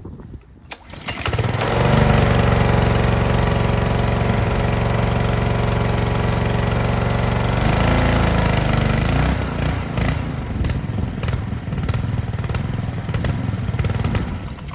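Honda GCV190 single-cylinder engine on a Ryobi pressure washer coming up to speed and running steadily. A little after halfway its note dips and wavers, and it then runs unevenly, with sharp ticks.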